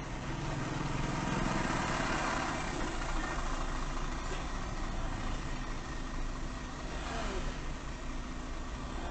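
Car engine idling while stopped in traffic, heard from inside the cabin through a dashcam microphone, with other vehicles driving past close by. The traffic noise swells about one to three seconds in as a vehicle passes.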